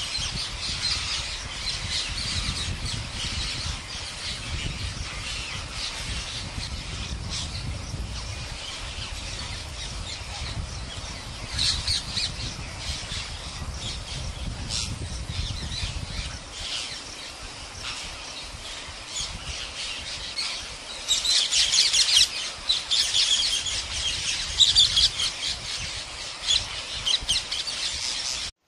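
A parrot squawking and calling over and over in short, rapid, high-pitched notes, with the loudest burst of calls a little over two-thirds of the way through. A low rumble sits under the first half and stops about halfway.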